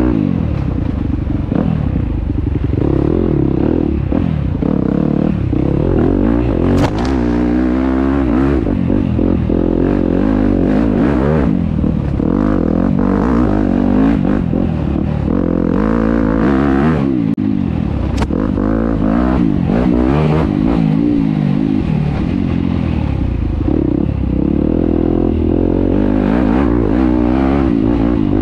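Enduro dirt bike engine revving up and down constantly, its pitch rising and falling every second or two as the throttle is worked, with clatter and two sharp clicks along the way.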